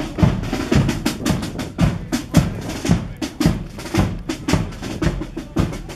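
A marching band's drum section beating a steady march cadence, with sharp drum strokes following one another at about two to three a second.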